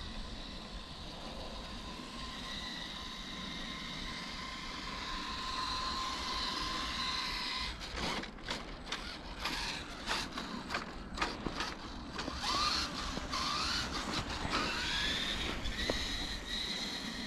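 Electric RC truck's motor and gears whining steadily, then cutting in and out in quick stabs of throttle from about eight seconds in, with the whine rising in pitch several times as the truck speeds up.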